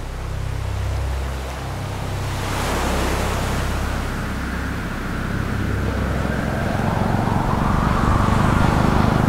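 Motorcycle engine approaching and growing louder over the last few seconds, over a steady wash of surf and wind.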